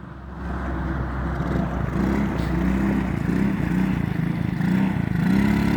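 Small ATV engine revving up and down in repeated short waves, then held at a steady, higher speed near the end. The drive chain has come off, so the quad doesn't move under the revving.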